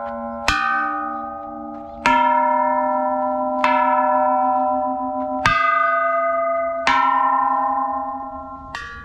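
Bells at a Buddhist shrine struck one after another, six strikes about every one and a half to two seconds. Each rings on and fades slowly, and the strikes differ in pitch from one bell to the next.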